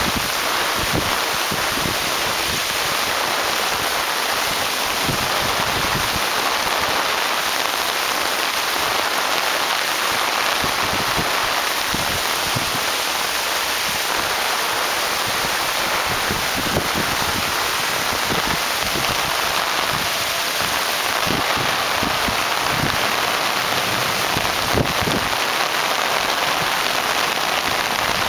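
Heavy rain pouring down in a steady downpour onto grass and shrubs.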